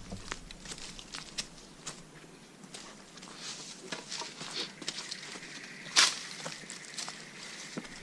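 Footsteps on a forest trail: irregular crunches and scuffs, with one louder step about six seconds in.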